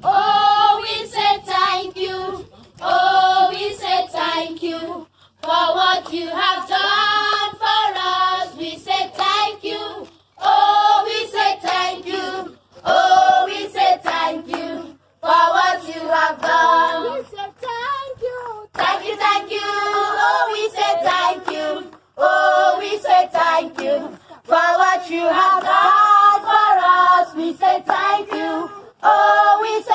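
A group of voices, women and children, singing a song together in phrases a few seconds long.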